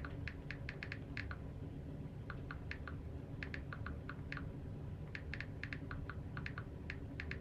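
Typing on a computer keyboard: irregular keystrokes in short runs with brief pauses, over a low steady hum.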